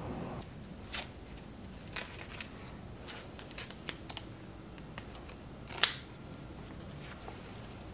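Scattered sharp plastic and metal clicks as a wireless bike-light remote's handlebar clamp and a folding multi-tool are handled. The loudest click comes near six seconds in.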